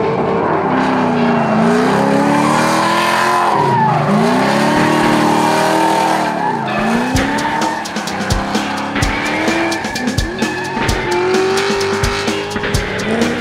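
A drift car's engine revving hard through a slide, its pitch swinging up and down several times with sharp dips about four and six and a half seconds in, over the hiss and squeal of spinning rear tyres. Music plays underneath.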